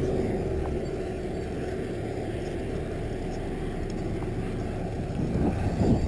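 Muffled rushing noise of riding a mountain bike over a dirt track: wind on a handlebar-mounted action camera and the tyres rolling on loose ground, turning louder and gustier near the end.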